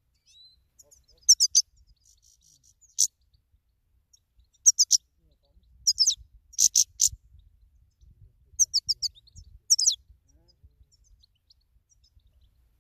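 European goldfinch chirping and twittering: short bursts of quick, high notes every second or two, with a faint low rumble of wind underneath.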